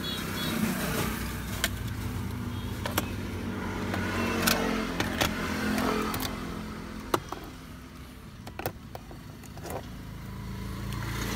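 Toyota Vios engine idling steadily, heard inside the cabin. Over it come several sharp clicks and taps as an adapter is handled and plugged into the cigarette-lighter socket.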